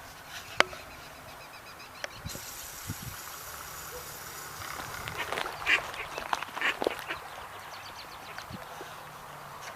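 Mallard ducks quacking in a quick run of short calls about five to seven seconds in, after a single sharp click near the start.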